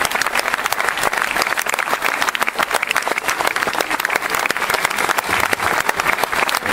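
A crowd applauding, many hands clapping steadily and densely.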